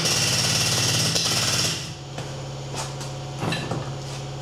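Rapid hammering on the car's steel body structure while it is held under a hydraulic pull: a burst of close-spaced strikes lasting nearly two seconds, then a couple of single knocks. The metal is being knocked through under tension so that it gives and moves into shape.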